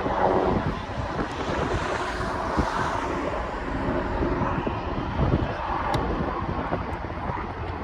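Wind buffeting the microphone outdoors: a steady low rumble with hiss, swelling briefly about two to three seconds in.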